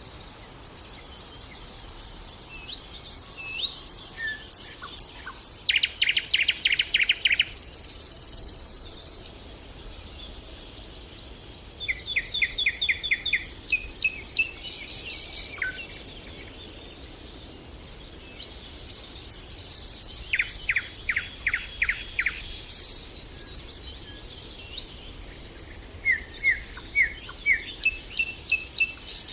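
Nightingale singing in separate phrases: fast runs of repeated sharp notes mixed with whistles, each phrase a second or two long, with pauses of a few seconds between them.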